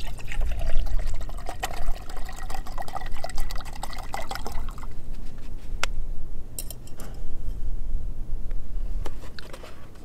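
Water poured from a plastic bottle into a small metal cook pot, a steady splashing for about five seconds that rises a little in pitch as the pot fills. Then a few sharp clicks and light handling of the gear.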